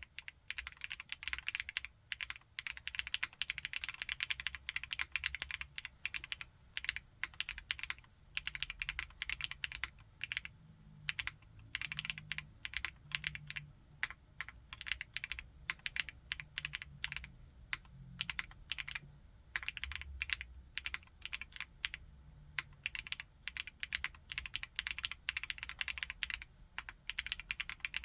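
Typing on a Chilkey ND TKL aluminium mechanical keyboard with Kailh Blue Lotus switches: rapid, continuous keystrokes in runs broken by brief pauses.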